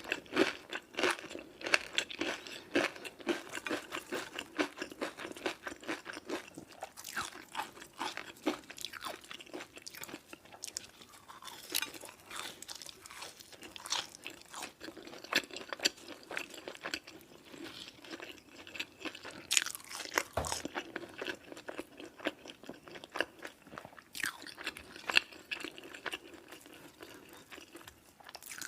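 A person eating crunchy fast food: bites crunching and chewing, with dense crackling crunches at first, then sparser chewing broken by a few louder crunches.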